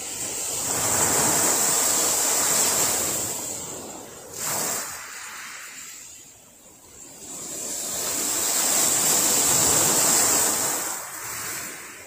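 Small sea waves washing up on a gravel beach: two surges, each swelling and then fading away, with a short louder burst between them about four and a half seconds in.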